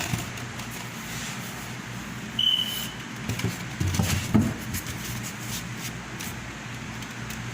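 Background noise inside a shop, with a single short high electronic beep about two and a half seconds in and a few low knocks and rustles a little later.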